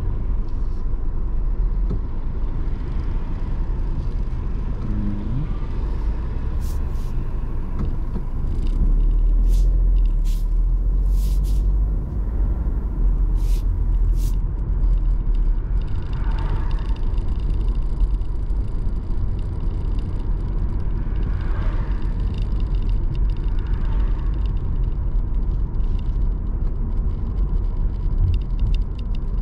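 Car driving slowly along a street, heard from inside the cabin: a steady low rumble of tyres and engine, swelling briefly about nine seconds in. A few short clicks sound between about seven and fourteen seconds in.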